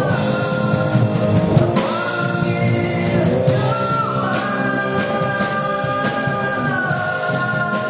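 Live rock band playing, with long held melody notes that slide from one pitch to the next over a full guitar and drum accompaniment.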